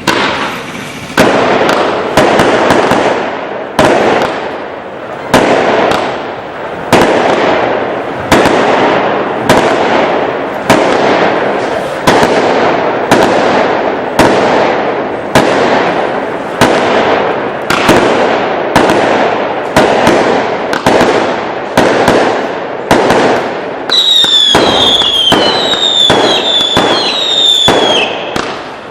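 A 100-shot 20 mm consumer firework cake firing a long run of shots, each a sharp bang followed by crackling, about one to two a second. Near the end, high whistling effects join in, each falling in pitch.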